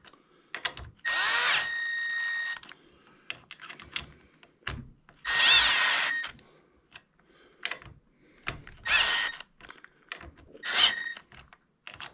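Cordless drill-driver running in four short bursts, each a whine that spins up, driving the Allen bolts of a bike kickstand tight with its torque clutch set to 14. Light clicks of handling between the bursts.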